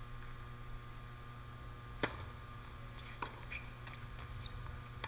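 A tennis ball struck hard with a racket once about two seconds in, on a serve, followed by a few fainter ball hits and bounces as the point is played. A steady low hum runs underneath.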